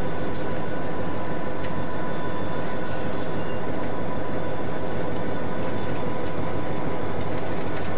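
Diesel locomotive engine idling steadily, a constant mechanical hum with a few faint clicks.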